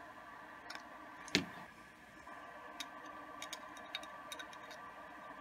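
Small metallic clicks of a thin metal tool and clarinet keywork as needle springs are set on a clarinet's upper joint: one sharp louder click about a second and a half in, then a scatter of lighter ticks.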